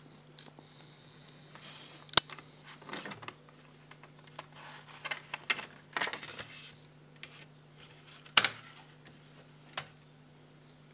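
A compact disc and its plastic double jewel case being handled: irregular plastic clicks and rustling, with sharp clicks about two seconds in and, loudest, about eight seconds in.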